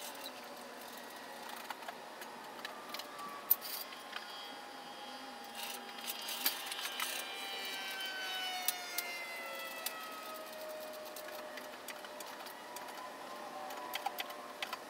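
Scattered light metal clinks of hand tools and a floor jack being handled under a car, over a faint background. Midway, a faint tone slowly falls in pitch.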